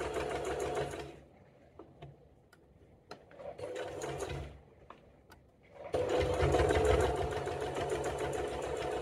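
Domestic electric sewing machine stitching in short runs: it runs for about a second and stops, a few small clicks follow, a brief second run comes near the middle, and a longer steady run starts about two-thirds through. This is the backstitch at the end of a seam, sewn again because the first one did not reach far enough.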